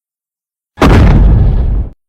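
A Godzilla (2019) film sound effect: a sudden loud, explosion-like blast with a deep rumble, lasting about a second and cut off abruptly.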